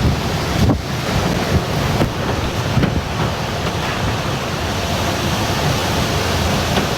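Strong, gusty wind of an approaching hurricane blowing hard and buffeting a phone's microphone.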